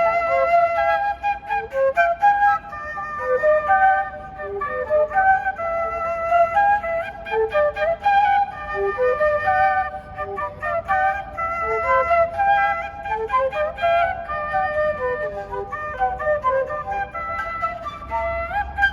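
A flute playing a lively melody of quick, short notes that run up and down in pitch.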